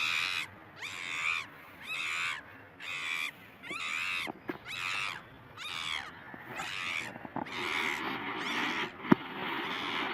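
A long series of rapid, repeated animal calls, each short and arching in pitch, about three every two seconds. A single sharp click sounds about nine seconds in.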